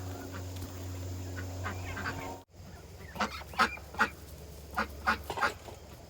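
Duck quacking: a run of about eight short, loud quacks in quick succession in the second half, after a steady low hum that stops abruptly at a cut.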